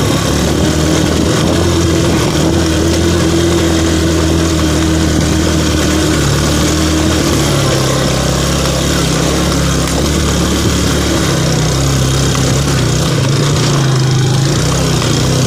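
Motorcycle engine running steadily while riding a rough dirt track, its pitch shifting a little as the throttle changes, over a continuous hiss.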